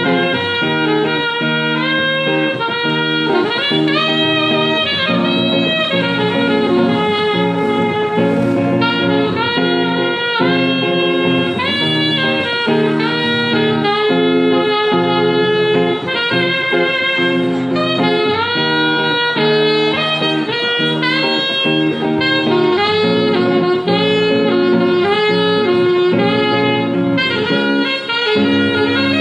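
Saxophone playing a slow melody, amplified through a stage microphone, over a sustained lower backing accompaniment.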